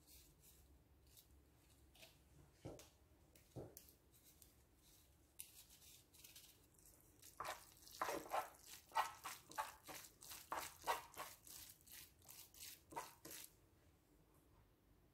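Wooden spoon stirring sticky, cheese-coated instant noodles in a frying pan: soft wet squelching and scraping. A few faint strokes at first, then a quick run of louder strokes, two to three a second, in the second half, stopping shortly before the end.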